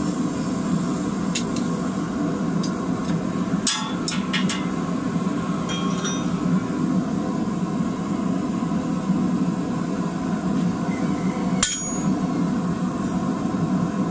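A few hammer blows on a hand-held chisel cutting into a red-hot square steel bar on an anvil, each strike ringing sharply: a quick cluster of about four a little under four seconds in, and one more strong blow near the end. Under them is a steady low roar.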